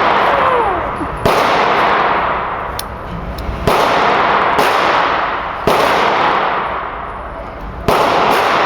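Glock pistol in .40 S&W fired four times, slow single shots about two seconds apart. Each sharp crack is followed by a long echoing tail.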